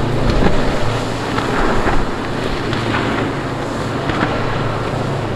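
Twin Yamaha 200 outboard motors on a Cape Horn center-console boat running at speed, a steady low drone under wind buffeting the microphone and the rushing of the hull's wake and spray.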